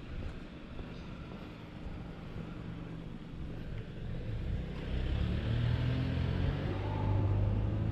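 A car's engine running close by with a low hum, growing louder about halfway through.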